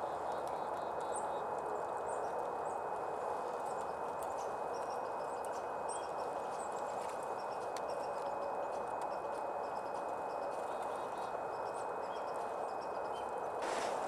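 A steady rushing background with scattered faint, very short high chip notes from small songbirds visiting a stump feeder.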